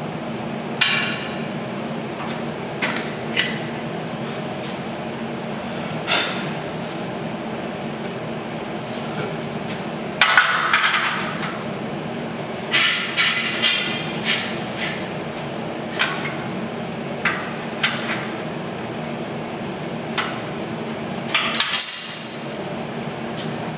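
Metal hand tools knocking, clinking and scraping against a steel gantry tube in scattered strikes, busiest about ten seconds in and just before the end, over a steady low hum.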